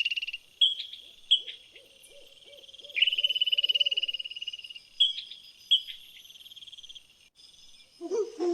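An animal's high-pitched trilling call, rapidly pulsed and about a second long, given twice with short chirps between, over a faint lower pulsing call.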